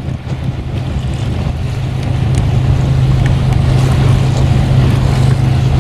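Sailing yacht's engine running steadily under motor sail, a constant low hum, mixed with wind on the microphone and rushing water. It grows louder over the first couple of seconds.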